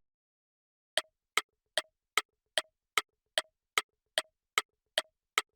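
Countdown timer sound effect: sharp electronic ticks, about two and a half a second, each with a short pitched blip, starting about a second in.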